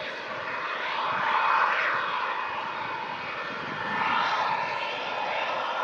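Boeing 747SP's four jet engines running loud, the roar swelling about a second in and again near four seconds with a slowly sweeping, phasing tone.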